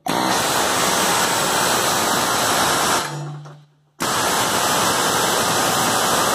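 Ingersoll Rand impact wrench running on a Case mower deck spindle's pulley nut in two loud steady bursts, the first stopping about three seconds in and the second starting a second later. It is working the nut loose to free the pulley.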